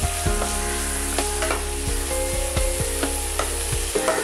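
Chopped onions sizzling in hot oil in a nonstick pan, stirred with a wooden spatula that scrapes and taps the pan in quick irregular strokes.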